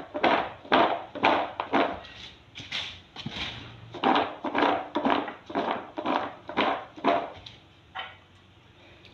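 Syrup-coated peanuts being tossed in flour, a rhythmic rustling rattle about twice a second that pauses briefly and stops about two seconds before the end.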